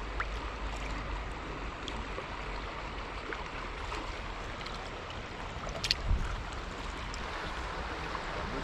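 Steady rush of flowing river current, with a short sharp knock about six seconds in.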